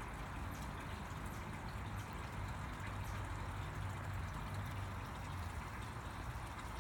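Steady background noise: a low rumble under an even hiss, with faint light ticks now and then.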